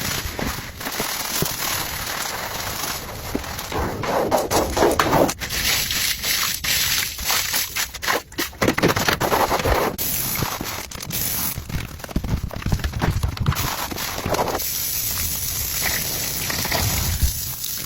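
Pressure washer jet spraying a patio surface: a loud, hissing rush with crackling, broken by frequent abrupt cuts and short gaps.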